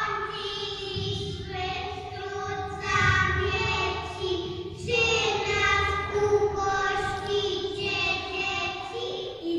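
Young children singing a song in long held notes, the phrases broken by short breaths every second or two.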